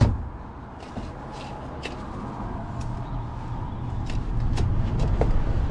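A sharp knock at the start, then a low rumble that grows steadily louder, as of a road vehicle approaching.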